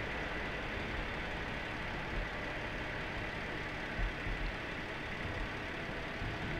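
A steady engine-like hum and hiss, as of an engine running, with a faint high whine over it.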